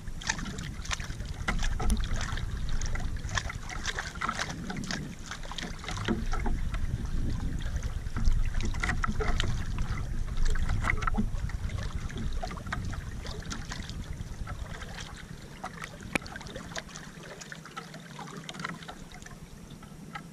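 Water lapping and splashing around a small outrigger canoe, with scattered small clicks and a low wind rumble on the microphone. It is louder in the first half and eases off toward the end.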